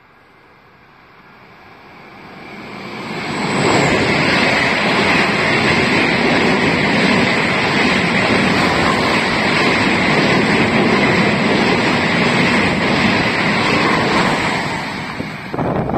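An ÖBB Railjet passenger train passing on the near track: wheel and rail noise with rushing air builds over about four seconds to a loud, steady rush, then eases slightly near the end.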